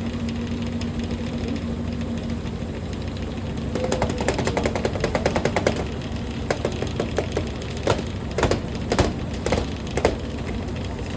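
Washing machine running with a steady hum. About four seconds in comes a fast rattle of clicks lasting about two seconds, followed by a handful of separate knocks.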